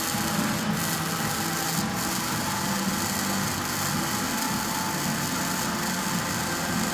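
Electric arc welding: a steady crackling hiss from the welding arc, with a low hum underneath.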